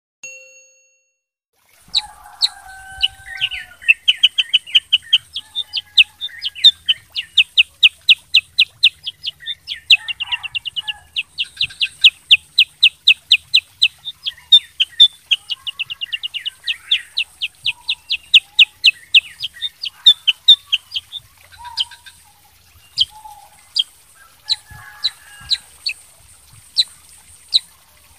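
Kutilang sutra singing nonstop: long fast runs of sharp repeated chirps, several a second, mixed with lower warbling notes. About three-quarters of the way in it thins to spaced single chirps.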